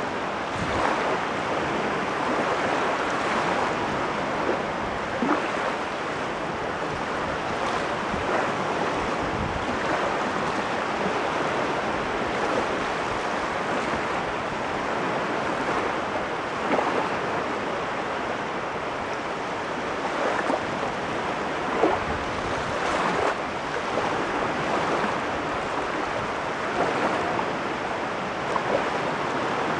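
Caspian Sea waves washing on the shore: a steady rush of water with frequent small splashes.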